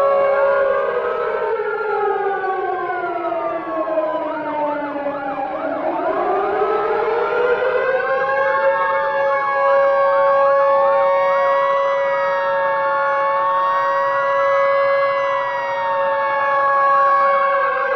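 A mix of several air raid (civil defense) sirens sounding together. One winds down in pitch over the first few seconds and winds back up to a steady tone, while others sweep up and down above it, and some passages warble rapidly.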